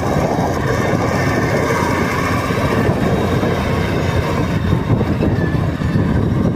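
Large Valmet tractor's diesel engine running steadily under load during field work.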